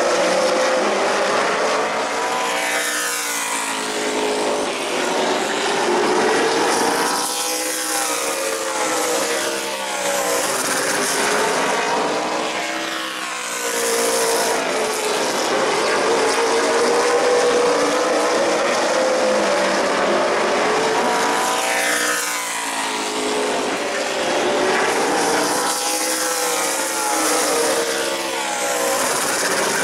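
Super late model stock cars racing on a short oval, their V8 engines running hard. The pack sweeps past again and again, the engine note dipping and rising with each pass.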